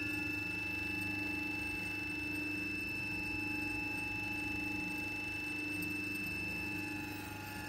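Old restored machine-tool three-phase electric motor, fed from 400 V, running steadily: an even electrical hum with a high whine above it.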